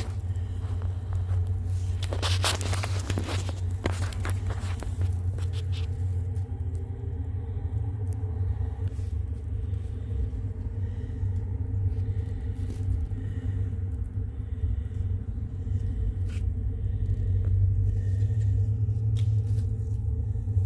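A steady low rumble throughout. Scraping and rustling run through the first six seconds or so.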